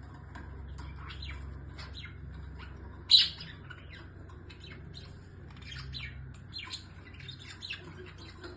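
A flock of small birds chirping busily, many short overlapping calls with one loud, sharp call about three seconds in, over a steady low background hum.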